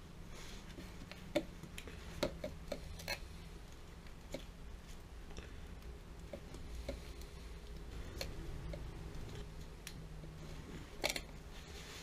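Small sharp clicks and taps from handling a digital multimeter and its test leads at a water heater's gas control valve, with glove rustle between; the loudest comes as a quick cluster of clicks near the end. A faint low hum runs underneath.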